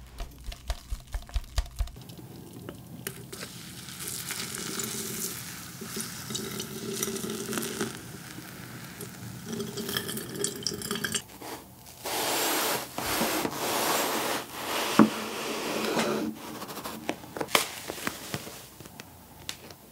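Coffee grounds tapped out of an electric grinder into a paper filter with a run of light knocks, then hot water poured from a kettle over the grounds in a ceramic pour-over dripper, a steady splashing trickle. Near the end, a puff of cotton candy is pulled apart by hand.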